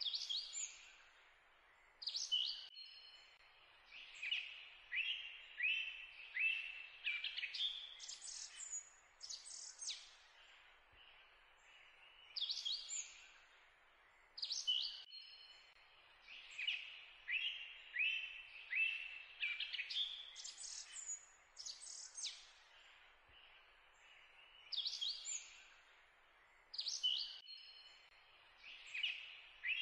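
Birds chirping and calling over a steady hiss, the same run of quick high chirps and short falling notes coming round again every twelve seconds or so: a looped birdsong background track.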